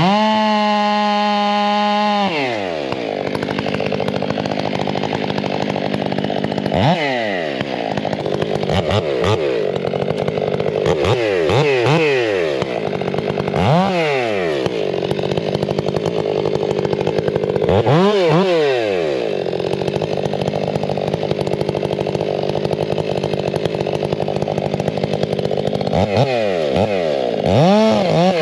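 Stihl 500 two-stroke chainsaw bucking logs. It is held at full revs for about two seconds at the start, then its pitch repeatedly drops and climbs back up as the throttle is eased off and opened again.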